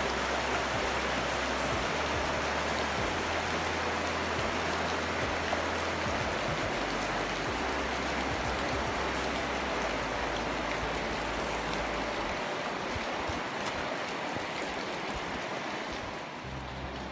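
Creek water running over a shallow rocky riffle: a steady rushing that eases slightly near the end.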